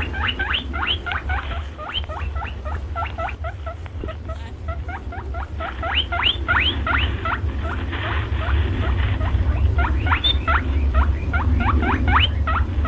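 A small animal squeaking: a rapid run of short, sharply rising squeaks, about four or five a second, over a steady low hum.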